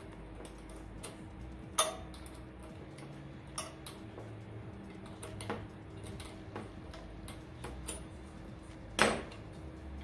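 Scattered metal clicks and taps of a wrench on the mounting bolt and bracket of a pellet stove's auger motor as the bolt is worked loose, the loudest about two seconds in and just after nine seconds.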